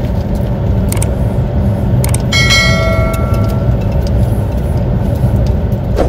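Steady car cabin rumble from the engine and road. Over it, a subscribe-button sound effect: a click about a second in, another about two seconds in, then a notification-bell chime that rings for about a second.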